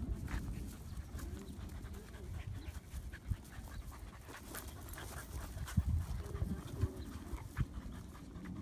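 Several dogs play-wrestling: panting and scuffling on wood chips, with a few short vocal sounds.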